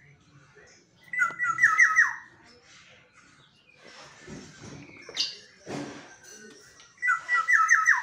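Black-naped oriole calling the same quick phrase twice, about six seconds apart. Each phrase is a rapid run of about five clear notes lasting about a second. A fainter knock falls between the two phrases.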